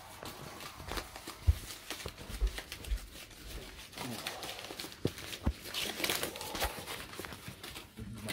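Paper being handled by hand, with irregular crinkling, rustling and tearing, and a few soft thuds in among it.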